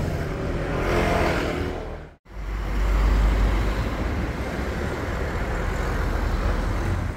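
Street traffic noise: cars passing, with a steady low rumble and a louder swell about a second in. The sound drops out briefly about two seconds in, then the rumble carries on.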